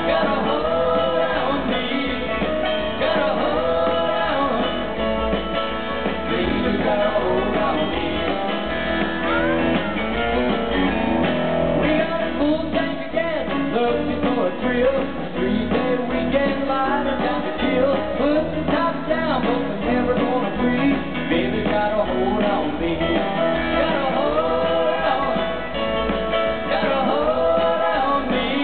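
Live country-rock band playing, with a man singing lead over electric guitar and a steady beat.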